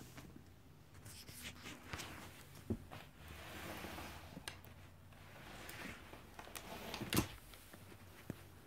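A kitten playing with a plastic toy rifle on carpet: scattered light knocks and clicks of plastic with soft scuffling rustles, and a sharper knock about seven seconds in.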